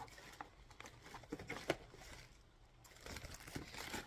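Packaging rustling and crinkling as a boxed beauty product is handled and unwrapped, with a few light clicks and a sharper click about two seconds in.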